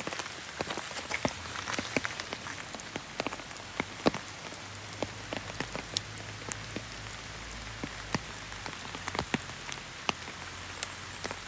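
Steady rain falling in a forest: an even hiss with many single drops ticking sharply close by.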